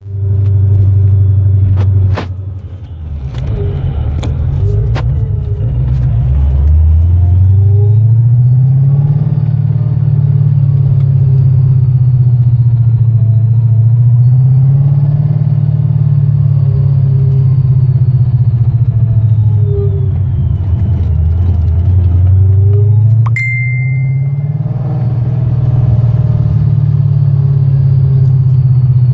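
Car on the move with a loud low drone that rises and falls in pitch as its speed changes; the owner suspects bad bearings. A short high beep sounds late on.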